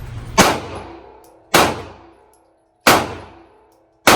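Four gunshots, about one every second and a quarter, each a sharp crack followed by a ringing echo that dies away.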